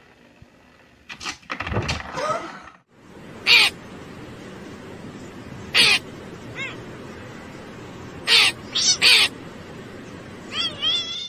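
A crow calling in about five short, harsh caws over a steady outdoor hiss, with a few fainter wavering chirps near the end. A short noisy stretch comes before the calls start.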